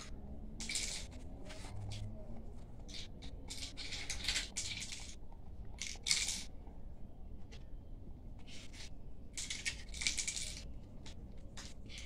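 Hands rolling and pressing a thin rope of homemade clay on a glossy paper card: short scraping, rustling strokes at irregular intervals.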